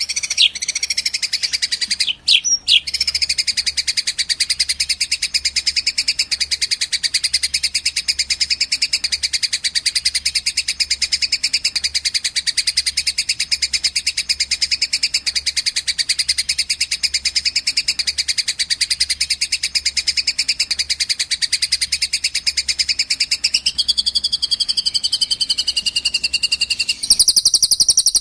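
A small songbird's rapid, unbroken high-pitched trill, the notes repeating many times a second, from a bird song-training recording. A gliding whistle joins in shortly before the end, and near the end a louder, higher trill takes over.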